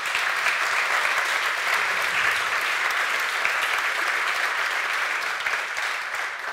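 Audience applauding: a large crowd clapping steadily, starting to die away near the end.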